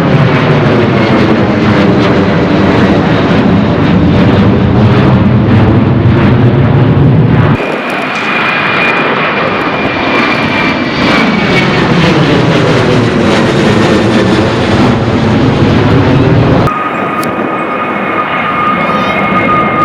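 Jet airliners taking off at full thrust, in three back-to-back takes that cut abruptly about a third and five-sixths of the way in. The first two are CFM56-powered Boeing 737-800s and the last a LEAP-powered Airbus A320neo. The engines give a steady loud roar with a high whine, and the whine falls in pitch as each aircraft passes.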